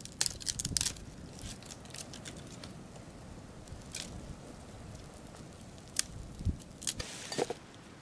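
Campfire of dry twigs and branches crackling, with sharp pops and snaps at irregular moments.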